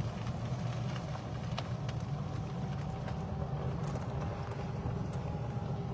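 Golf cart driving along: a steady low running hum with a faint steady whine above it.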